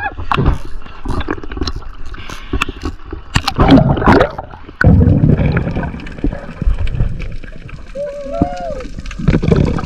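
Water gurgling and sloshing around an action camera as it moves at and under the surface, with scattered sharp clicks and a loud rush of water about four seconds in. Near the end comes a short, muffled voice-like sound.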